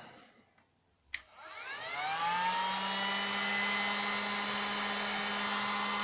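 AOBEN AB4035T heat gun switched on at its first setting: a click about a second in, then its fan motor spins up with a rising whine and settles into a steady, rather noisy blowing hum.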